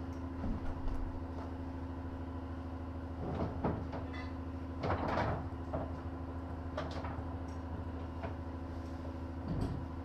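Inside a 1915 Ringhoffer tramcar: a steady hum with about six separate knocks and creaks from the car, scattered through the stretch.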